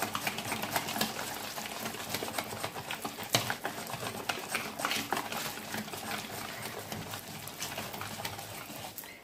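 A utensil stirring thick cornmeal batter in a bowl: a fast, irregular run of clicks and scrapes against the bowl.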